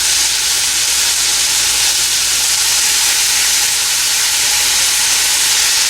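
Onion, green pepper and dry chili stir-fry sizzling steadily in a hot pan as soy sauce is poured in.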